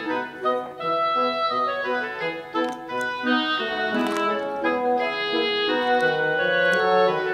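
Background instrumental music: a melody of held notes over chords.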